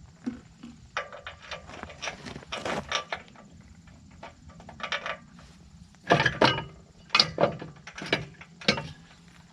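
Socket wrench and steel bolts being worked by hand: irregular metal clicks and clanks in bursts, the loudest clanks coming between about six and nine seconds in.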